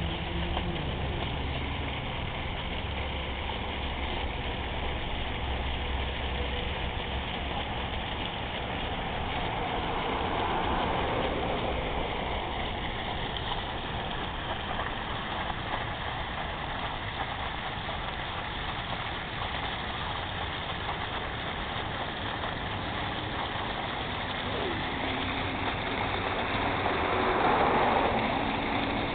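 A jet of water gushes up and splashes down in a steady rushing spray. It swells louder twice, most strongly near the end.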